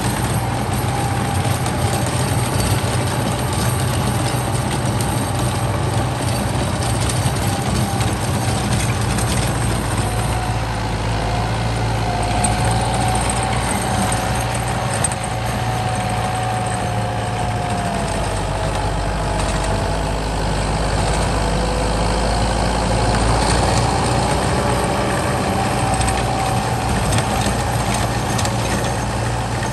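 Kubota M8540 tractor's diesel engine running steadily under load as it pulls a rotary tiller through dry soil, a constant low drone with a faint whine above it.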